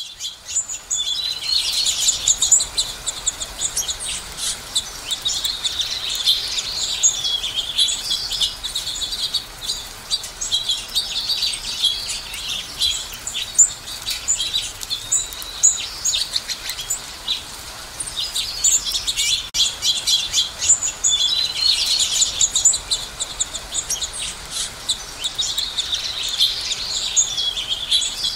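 A flock of house finches chirping continuously in high, quick notes. Longer warbling songs stand out about two seconds in and again around 21 and 27 seconds.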